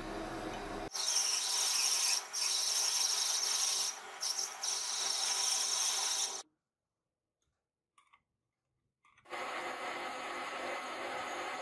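Metal lathe turning a small metal part with a cutting tool on it, giving a steady hissing scrape. The sound cuts off about six seconds in, and after about three seconds of silence the lathe runs again with a knurling tool pressed into the brass part.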